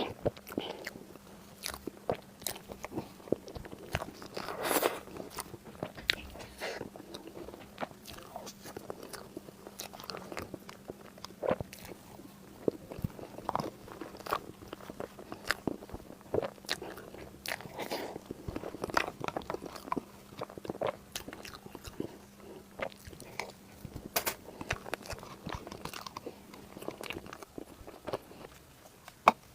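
Close-miked eating: irregular bites, crunches and wet chewing smacks of Chinese food, each a short sharp click, with no talking.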